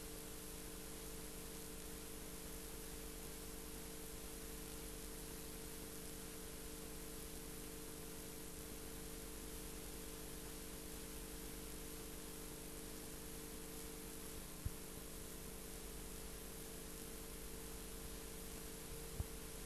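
Steady hiss and hum of the recording's background noise, with a few faint steady tones, broken by two short clicks, one about three-quarters of the way through and one near the end.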